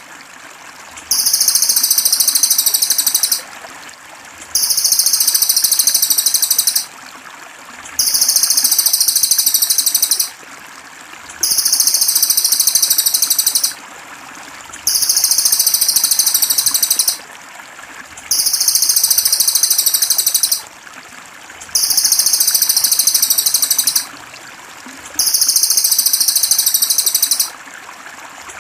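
A songbird's high, rapid buzzing trill, each phrase about two seconds long, repeated eight times at even spacing as a looped masteran song, over steady trickling water.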